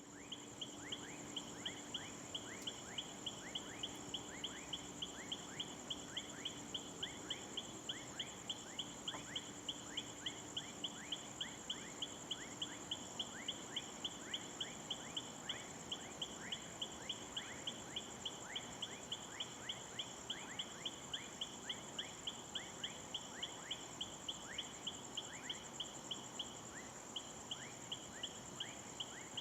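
Night insects chirping: a continuous high trill with a regular pulsed chirp about three times a second and short falling calls.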